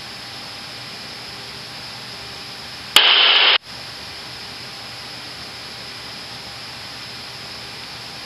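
Steady hiss of the aircraft's cockpit intercom audio in flight. About three seconds in, a sudden loud burst of static cuts in for just over half a second and stops abruptly, like a radio squelch burst or a keyed microphone.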